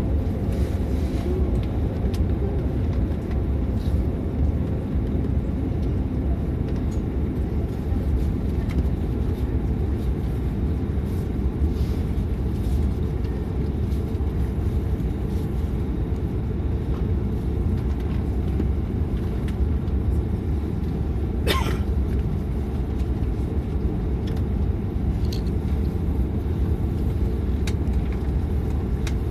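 Steady low drone inside the cabin of a De Havilland Canada Dash 8-400 waiting at the gate, its propellers not yet turning. There is one brief sharp click about two-thirds of the way through.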